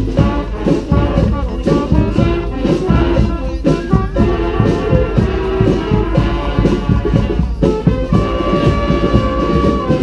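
Street brass band playing a cumbia: trumpets and trombones over a steady beat. About eight seconds in, one horn holds a long note.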